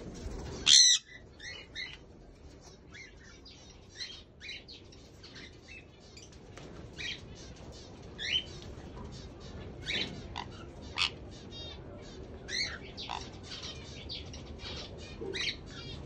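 Small parrots in an aviary calling and chirping: many short, high calls scattered throughout, with one loud harsh squawk about a second in.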